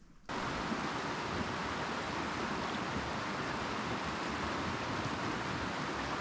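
Rocky mountain creek rushing steadily over stones, starting abruptly a moment in.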